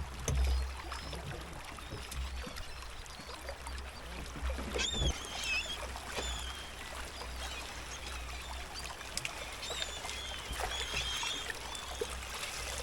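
Water trickling and sloshing around a small fishing boat, over a steady low rumble, with a few short high calls, about five seconds in and again near the end.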